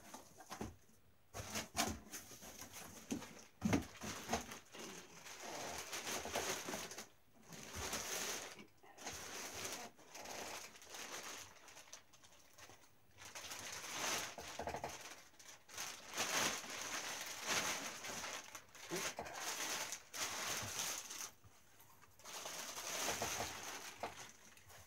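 Clear plastic packaging crinkling and rustling in repeated bursts with short pauses, as the wrapping is handled and pulled off a replica championship belt.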